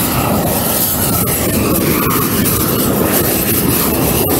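Propane wand torch burning with a steady, loud rush of flame as it scorches the surface of pine boards in a shou sugi ban charring treatment.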